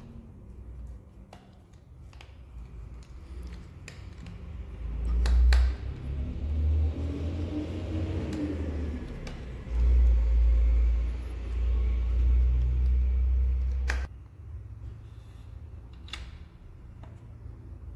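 A deep rumble swells in about four seconds in, peaks twice, and cuts off suddenly near the fourteen-second mark. A few sharp clicks of handwork sit among it: a screwdriver driving screws into a metal bracket on a wooden stock.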